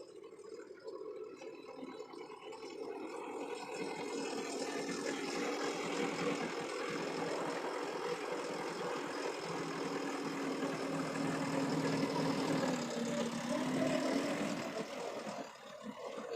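A vehicle engine running steadily, growing louder over the first few seconds, its tone dipping briefly and recovering about thirteen seconds in.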